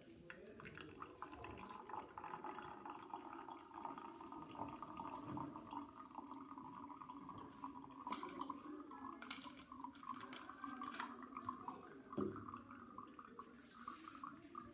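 Water running and trickling down a channel, carrying mud and sand into standing water, with splashes and small clicks of grit throughout and a knock about twelve seconds in.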